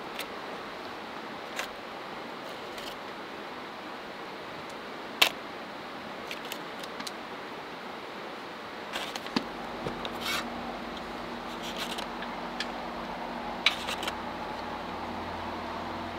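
Scattered light clicks and taps from hands laying cheese and toppings on a pizza in a Dutch oven, over a steady hiss. One sharp click about five seconds in is the loudest. A low steady hum comes in about nine seconds in.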